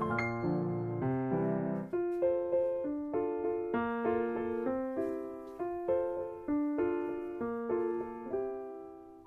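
Background piano music: a gentle, unhurried melody of soft notes.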